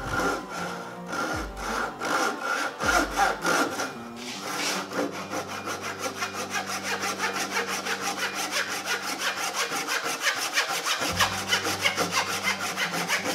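Japanese pull saw cutting through a wooden axe handle clamped in a vise, trimming off its top end. A few slow, long strokes come first, then from about four seconds in quick, short strokes follow several times a second.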